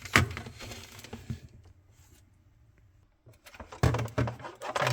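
Hard clicks and knocks of refrigerator wire-harness parts and connectors being handled and slid into place: a couple of sharp clicks at first, a quiet second or two, then a quick run of clicks near the end.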